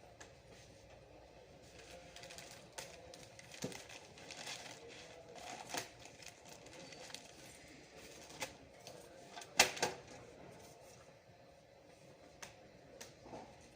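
Scattered clicks and light knocks of hard plastic and metal parts being handled on a desktop computer, with one sharper knock about ten seconds in.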